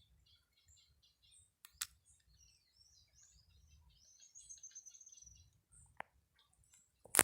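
Wild songbirds chirping and calling, with a rapid run of high, slightly falling notes about four to five seconds in. Sharp clicks cut in about two seconds in and at six seconds, and a louder click comes right at the end.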